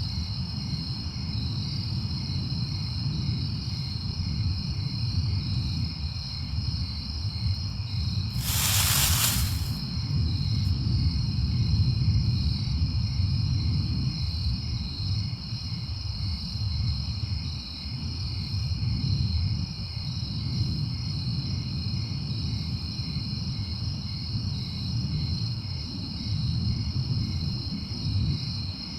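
Steady outdoor background noise: a low rumble under steady, high-pitched pulsing tones, with a short hiss about nine seconds in.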